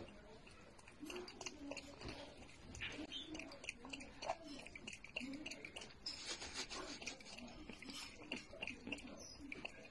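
Raccoon lapping water from a glass mug with its tongue: a continuous run of soft, wet smacks and clicks.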